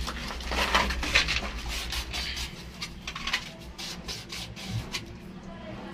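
Scraping and rubbing by hand in quick, irregular strokes, loudest in the first half, over a steady low hum.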